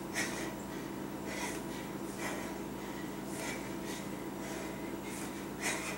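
A woman breathing hard in short, forceful breaths, one with each kettlebell swing, about one a second, over a steady faint hum.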